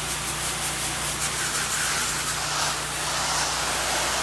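Pressure washer running steadily: a low engine and pump hum under the even hiss of the wand spraying a soap mix.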